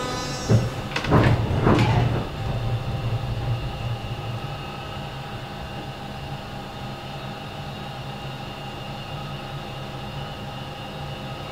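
Interior sound of a Düwag M8C light-rail car: a few clattering knocks in the first two seconds, then a steady low hum and rumble with a faint whine.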